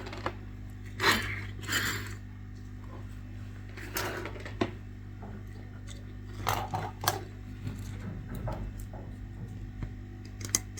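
Short scrapes and clicks of tools being worked on a circuit board at a repair bench, over a steady electrical hum.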